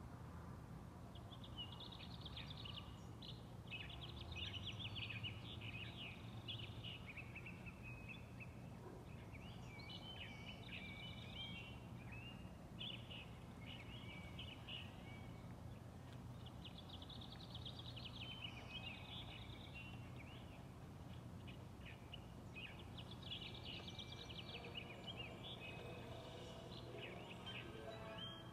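Faint birdsong: quick chirps and twitters in bouts of several seconds with short pauses between, over a low steady hum.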